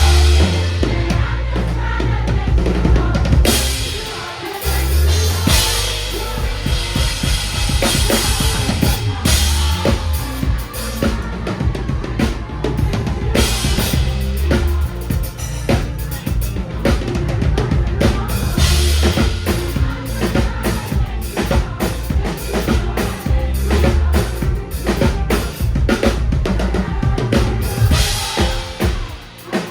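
Band music driven by a drum kit, with kick, snare and cymbal hits, over a deep, heavy bass line.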